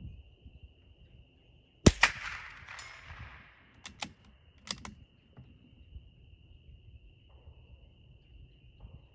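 A single shot from a Ruger American bolt-action .22 LR rifle about two seconds in: a sharp crack with a quick echo trailing off. About two seconds later come two sharp clicks less than a second apart as the bolt is cycled for the next round.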